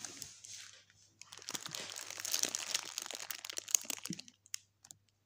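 Crinkling and rustling as a cardboard sign and the plastic-wrapped products around it are handled, in two stretches with a short break about a second in, trailing off into a few scattered clicks after about four seconds.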